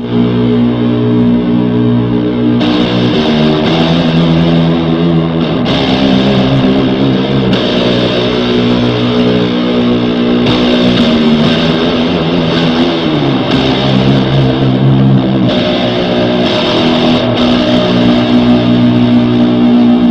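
Electric guitar played through a fuzz and reverb pedal: heavy, sustained low riffs and chords in a stoner-rock style. The notes shift every second or two and ring on into one another.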